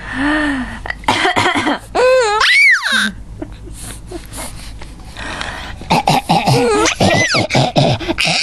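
A woman coughing and a young child laughing at it with high squeals that rise and fall in pitch.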